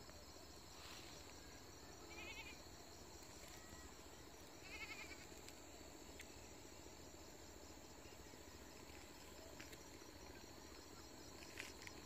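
Near-silent field ambience with a faint steady high tone, broken by two brief quavering animal calls about two and five seconds in.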